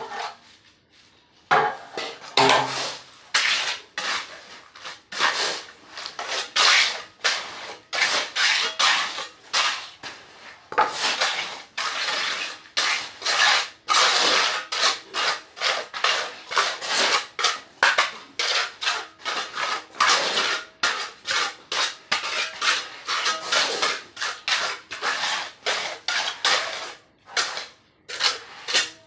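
A metal trowel scraping and spreading wet cement mortar over a gritty concrete floor, in repeated rough strokes about one or two a second, starting about a second and a half in.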